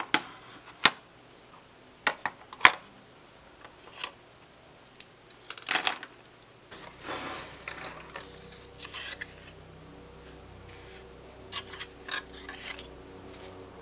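Art supplies handled on a cutting mat: a plastic watercolour palette and paint box set down and shifted, giving several sharp clicks and knocks, then paint brushes laid down and small paper cards rubbing and sliding against each other.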